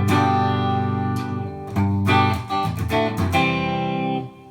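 Guitar strumming a run of chords, a short intro that stops abruptly near the end.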